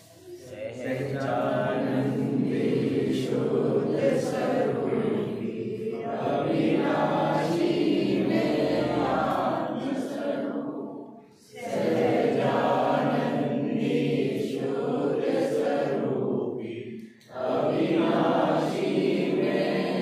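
A group of voices chanting or singing together in long sustained phrases, with two short breaks about 11 and 17 seconds in.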